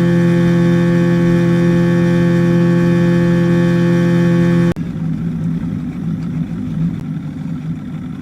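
Boat motor running at a steady speed. About five seconds in it cuts abruptly to a lower, rougher, uneven rumble.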